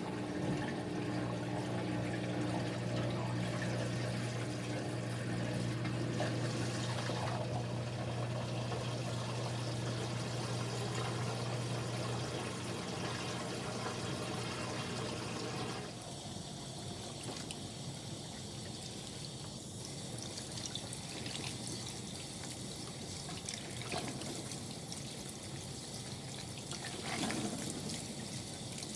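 Kuppet portable washing machine running with a steady motor hum over pouring, splashing water; the hum stops about 12 seconds in, leaving water trickling and dripping.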